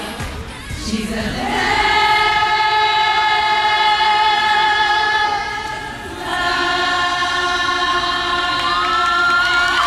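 A group of women's voices singing together, holding two long notes with a short break between them. A single voice rises in a cry near the end.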